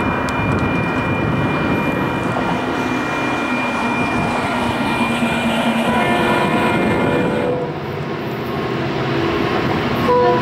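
Approaching freight train on the Florida East Coast Railway: a steady rumble, with the lead locomotive's horn sounding about six seconds in, and again just at the end.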